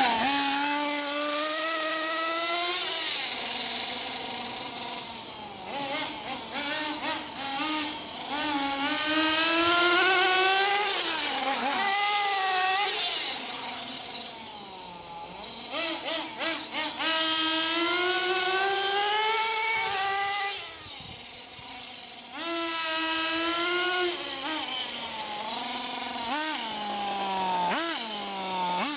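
Nitro Kyosho DRX radio-controlled rally car's small two-stroke glow engine, revving up and down with the throttle as the car is driven hard, its high, buzzy pitch rising and falling. Twice there are bursts of quick throttle blips, and a little past the middle it drops back briefly to a quieter idle before revving again.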